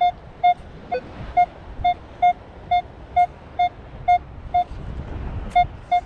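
Minelab metal detector giving repeated short, mid-pitched target beeps, about two a second, as its coil is swept back and forth over a metal target buried in the sand. Low wind or surf rumble underneath.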